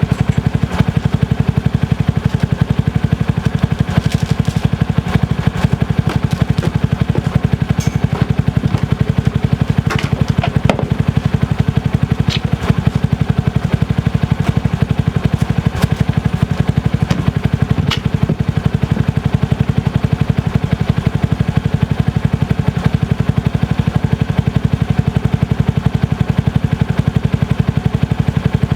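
Honda CT125 Hunter Cub's single-cylinder engine running at a steady speed, its exhaust pulses even and unchanging throughout.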